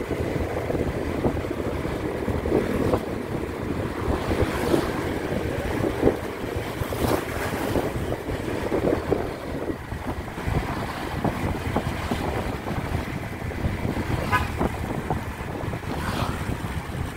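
Wind rushing and buffeting over the microphone of a moving motorcycle, a steady roar with uneven gusts, with the motorcycle's running and road noise underneath.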